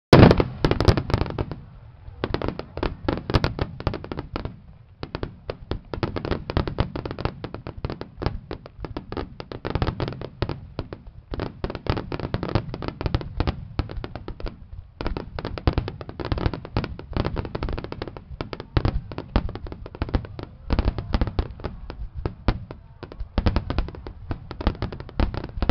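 Aerial fireworks shells bursting in a dense barrage, many booms and crackles overlapping, broken by a few short lulls. The loudest bang comes right at the start.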